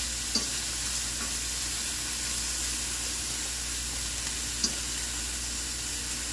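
Diced onions and sweet peppers sizzling steadily in oil in a stainless steel frying pan as they sauté, stirred with a metal fork that clicks against the pan twice.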